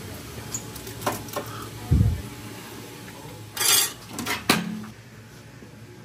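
Dishes and cutlery clinking and clattering in scattered knocks, with a dull thump about two seconds in and a short burst of clatter a little past halfway.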